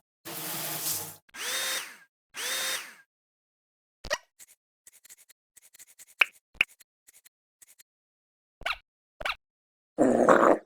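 Cartoon sound effects: three short noisy bursts in quick succession, then scattered light clicks and ticks, and a louder burst near the end.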